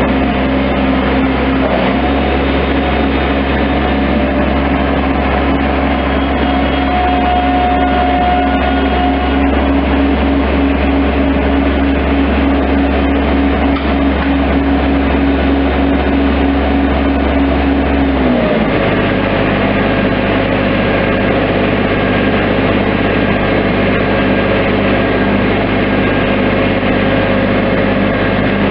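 Bobcat MT-85 stand-on mini track loader's diesel engine running steadily at raised speed, then dropping to a lower idle about two-thirds of the way through.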